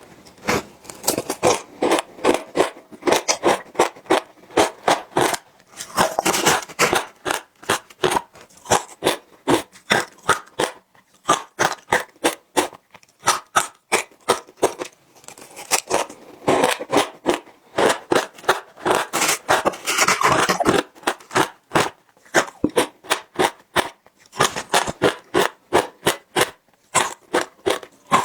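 Close-miked biting and chewing of ice: rapid runs of sharp crunches, broken by a few short pauses.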